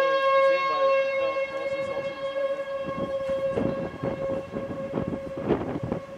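Outdoor tornado warning siren sounding a steady single-pitch wail that slowly fades, with rough bursts of noise in the second half.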